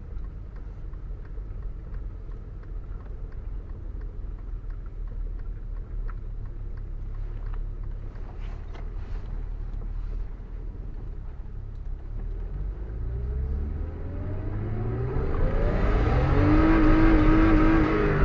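BMW E34 engine and road noise, a steady low rumble while driving slowly, then about twelve seconds in the engine revs climb as the car accelerates, getting louder towards the end.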